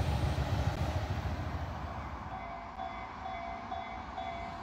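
Tobu commuter train running past on the tracks, its rumble fading away over the first two seconds. About halfway through, a repeating electronic ding sets in, about two or three a second.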